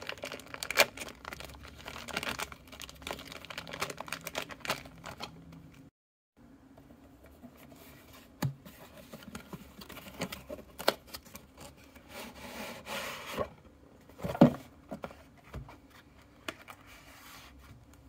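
Clear plastic packaging bag crinkling and rustling in the hands, then cardboard packaging being rubbed, scraped and tapped as the box is handled, with a few sharp knocks. The sound breaks off briefly about six seconds in.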